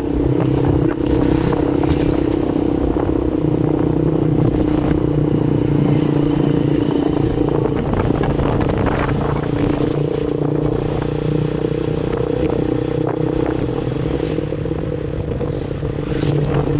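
Motorcycle engine running at a steady cruise, heard from on board the moving bike, with wind noise on the microphone.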